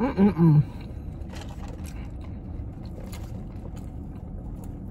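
A short hummed vocal sound at the very start, then the steady low rumble of a parked car's interior, with a few faint clicks as a drink is sipped through a straw.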